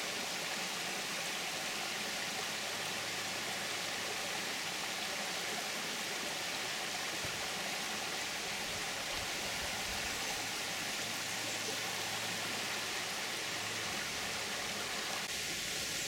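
Shallow rocky creek running over stones and small cascades: a steady, even rush of water.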